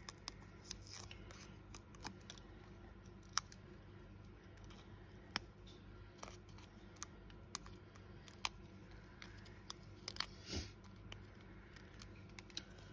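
Faint, irregular sharp clicks and small crackles of foam adhesive dimensionals being picked and peeled off their backing sheet, about a dozen ticks spread unevenly.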